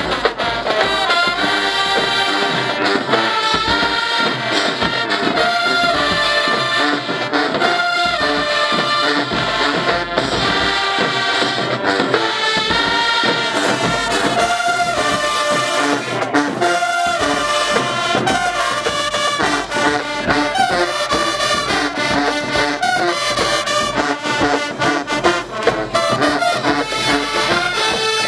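High school marching band playing loudly in the stands: massed trumpets, trombones, sousaphones and saxophones sounding full held chords over a steady drum beat.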